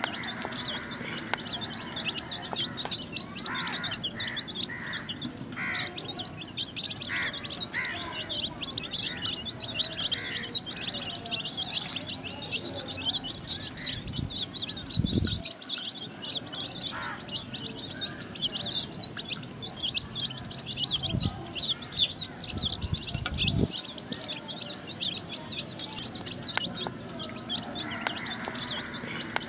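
Baby chicks peeping: many short, high chirps in a dense, continuous stream. Two brief low rumbles come through near the middle.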